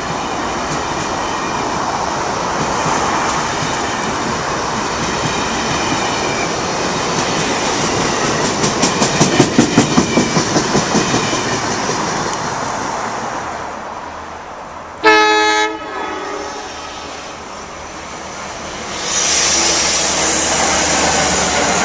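An Amtrak passenger train of stainless-steel coaches rushes past close by, its wheels clacking quickly over rail joints for a few seconds midway, then dying away. A short train horn blast sounds suddenly. Near the end a new steady rush of an NJ Transit electric train begins.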